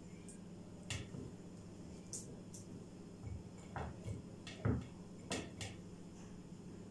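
Light knocks and clicks of carrot sticks and green pepper pieces being put into a glass jar by hand, about nine scattered taps with the loudest a little under five seconds in.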